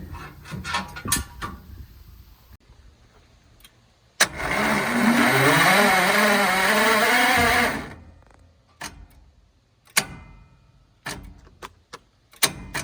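Wood chipper's engine cranked over for about three and a half seconds, starting with a sharp click and stopping without catching: a failed start attempt. A few scattered knocks follow.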